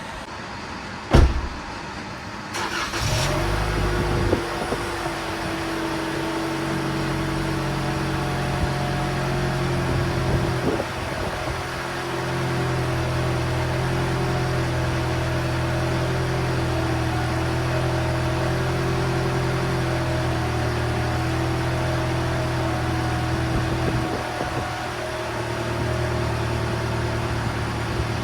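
A sharp knock about a second in, then a car engine starts and idles steadily.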